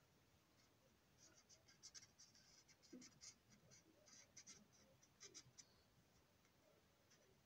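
Felt-tip permanent marker stroking over a plastic boxcar shell: faint, soft, scratchy strokes in quick succession that stop a little before the end.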